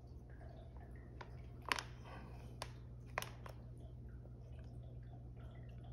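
Faint handling of a water-filled plastic fish-shipping bag: soft crinkling and squishing, with three sharp clicks in the first half.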